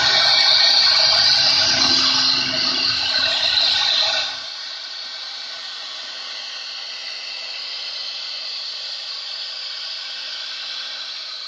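4-axis CNC router's air-cooled spindle running and its bit milling wood, a steady rushing noise with a steady hum under it. About four seconds in it drops suddenly to a quieter, thinner sound as the spindle carries on cutting.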